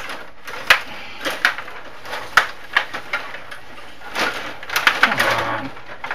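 Stiga table hockey game in play: irregular sharp plastic clicks and clacks as the rods are worked and the puck strikes the players and boards, with a quicker rattle of clicks about five seconds in.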